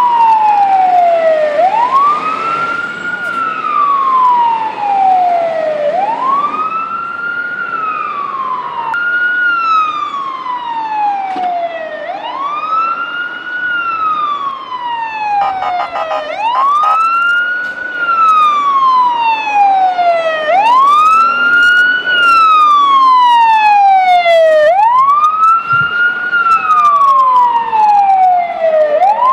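Fire engine siren wailing in a repeating cycle, about every four seconds: a quick rise in pitch followed by a long, slow fall.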